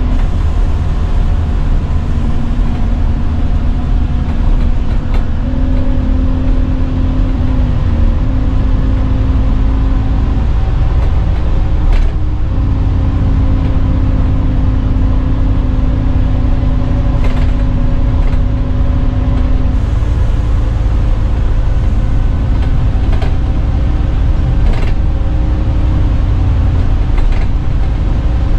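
Scania N230UD double-decker bus heard from the upper deck while under way: the five-cylinder diesel engine and drivetrain give a heavy low rumble with a humming tone that steps up and down in pitch several times as the bus changes speed. A few sharp rattles from the body and fittings come through now and then.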